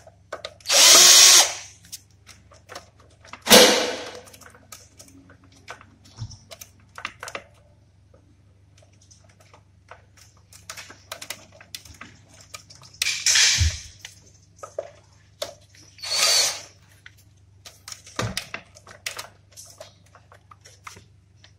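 Cordless drill-driver running in four short bursts as it drives screws into an air conditioner's wiring terminal block, with small clicks of handling between the bursts.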